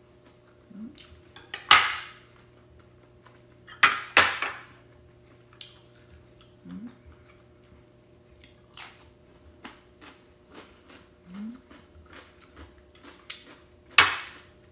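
Metal spoon clinking and scraping against a ceramic bowl while eating, four loud clinks standing out among softer clicks.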